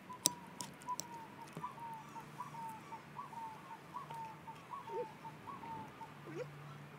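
A bird calling faintly over and over, a short, slightly falling note repeated about three times a second, with a few soft clicks.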